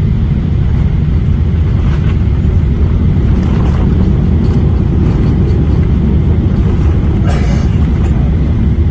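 Airliner cabin noise on the landing roll, heard inside the cabin beside the engine: a loud, steady low rumble of the engines and the wheels running on the runway. A short hiss cuts in near the end.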